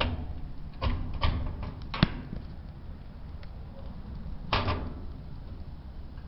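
Sheet-metal top of a top-load washer being lowered and worked onto its locating pegs: a string of knocks and clunks, a sharp click about two seconds in and another clunk near the middle.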